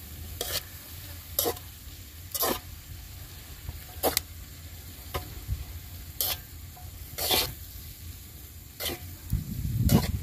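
A spatula scraping and stirring fern greens (pakis) in a cast-iron wok over a wood fire, about one stroke a second, over a faint steady sizzle.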